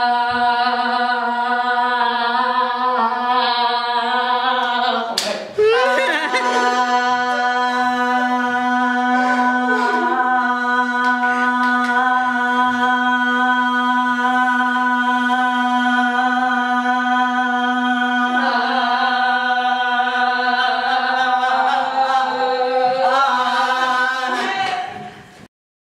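Women's voices holding one long sung note on 'ah', the pitch held steady, with a brief break about five seconds in before the note is taken up again. Near the end the pitch wavers and the singing cuts off suddenly.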